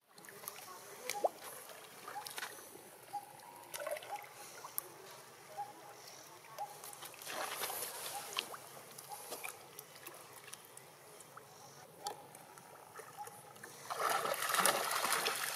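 Water sloshing and splashing around macaques swimming and wading, with many small drips and splashes. It gets louder about halfway through and again near the end.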